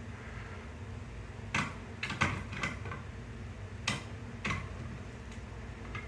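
A handful of light clicks and knocks, bunched around two seconds in and spaced out after, over a steady low hum.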